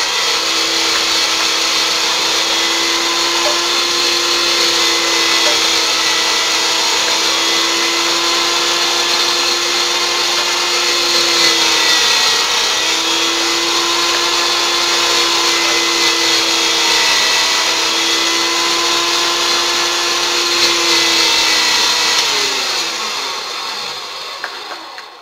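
Electric meat grinder's motor running steadily while it minces pitted apricots into pulp. Its pitch dips briefly about halfway, then the motor slows and stops near the end.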